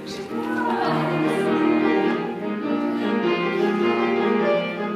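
Classical music playing, with bowed strings and piano holding steady, sustained notes.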